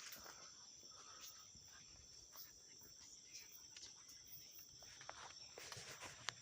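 Insects chirring faintly and steadily in a high band, with a few scattered clicks and rustles, the sharpest one near the end.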